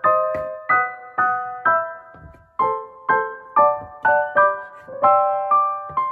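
Background piano music: a gentle melody of single struck notes, about two a second.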